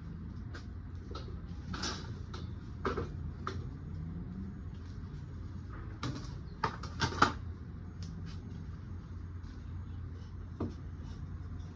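Irregular knocks and clatters from a flower pot being handled as a plant is worked out of it, the loudest cluster about seven seconds in, over a steady low hum.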